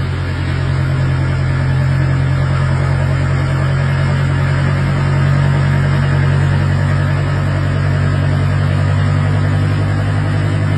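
A steady, loud low mechanical drone, unchanging throughout, like an engine or motor running.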